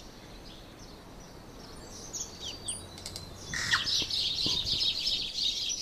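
Birds chirping: a few scattered high calls, then from a little past halfway a dense, fast twittering.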